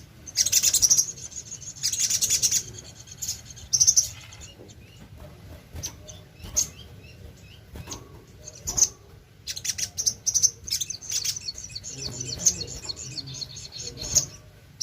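Sogon (sogok ontong) songbird singing in bursts of rapid, sharp high chirps and trills, separated by short pauses and single notes, the kind of lively song used to lure other sogon birds into singing.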